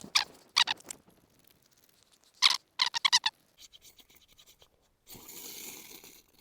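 Sharp scraping strikes of a flint insert against a survival knife's blade to throw sparks for a fire, in two quick flurries. About a second of soft rustling near the end.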